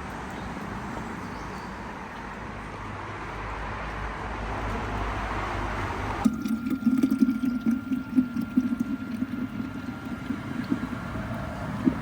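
Liquid pouring into a container, the sound rising as it fills, for about six seconds. Then it cuts suddenly to a steady low hum with irregular knocks.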